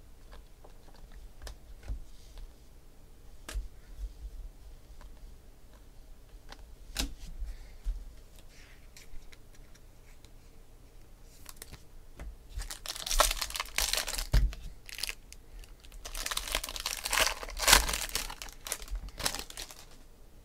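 Trading card pack wrapper being torn open and crinkled, in two rustling spells about two-thirds of the way in and near the end. Before that come scattered light clicks of cards being handled.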